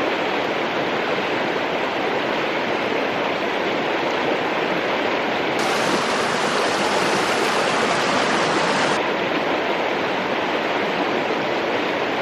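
Creek water running steadily, an even rushing noise with no distinct events.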